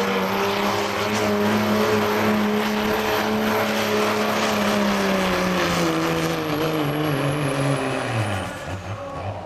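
Dodge Ram's Cummins inline-six turbodiesel at full throttle, pulling a weight-transfer sled. It runs at high revs with its pitch sagging slowly as the load builds, then the revs drop sharply near the end.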